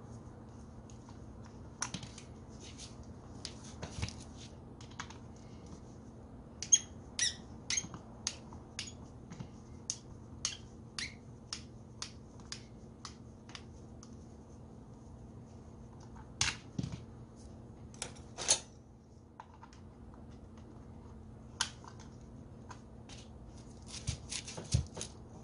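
Screwdriver working the housing screws of a small electric angle grinder: a string of sharp small clicks and ticks, with a stretch in the middle of even clicks about two a second as a screw is turned out.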